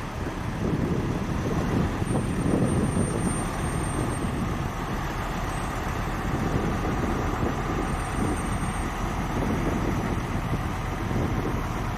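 Heavy military vehicle running, a steady low engine rumble that swells slightly in the first second and then holds with small surges.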